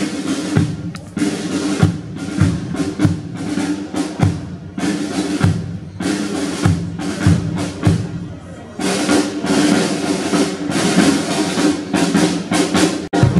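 Marching brass band playing a march in the open street: bass drum and snare drum keep a steady beat under tubas, horns and trumpets. The brass gets louder about two-thirds of the way through, and the sound drops out for an instant near the end.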